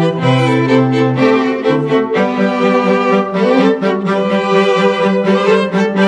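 Background music of bowed strings, violin and cello, playing slow sustained notes.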